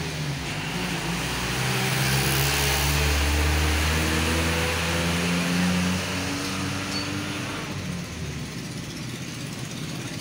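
A road vehicle's engine passing close by, its pitch rising in steps as it accelerates with a rush of noise, then fading away after about six seconds.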